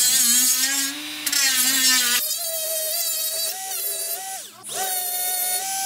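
Small cordless power tool spinning an abrasive pad against an aluminium radiator end tank, scrubbing its coating down to clean metal ready for welding. The motor whine shifts with pressure, with a scraping hiss at first, then a higher, steadier whine about two seconds in that dips briefly shortly before the end.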